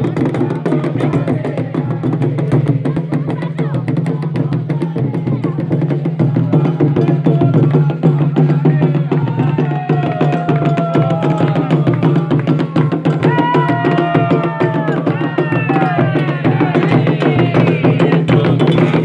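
Afro-Brazilian ritual drumming on atabaque hand drums, a steady fast rhythm, with voices singing a chant over it from about ten seconds in.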